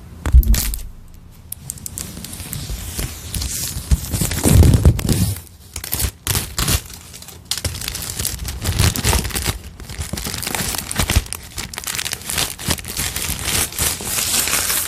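Packaging of a new iPad Air being torn open and crumpled by hand: irregular tearing and crinkling rustles, with a few dull bumps from the box being handled.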